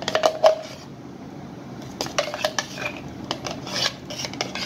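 Utensils clinking and scraping against a stainless-steel bowl and mixer jar as mango pulp is scraped into the curd, in short clusters of clicks with a brief metallic ring: one at the start, another about two seconds in, and more near the end.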